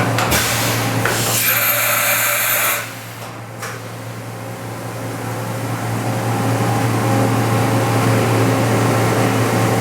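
Yama Seiki BM1800 CNC vertical machining center running, with a steady low hum. A high-pitched hissing whine comes in about a second and a half in and cuts off near three seconds. The sound then drops and slowly builds back up.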